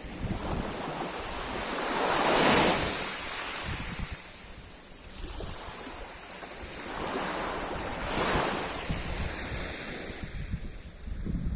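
Sea waves breaking and washing on the shore, with two swells about two seconds in and again near eight seconds, under a low rumble of wind on the microphone.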